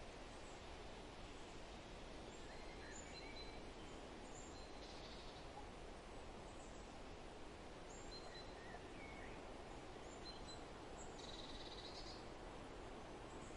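Faint steady hiss of outdoor ambience with scattered short bird chirps, and a buzzy trill twice, about five seconds in and again about eleven seconds in.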